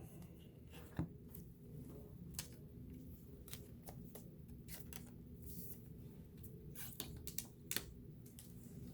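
Faint, scattered clicks and flicks of trading cards being handled and slid one behind another while flipping through a pack, with the sharpest ticks about a second in and near the end.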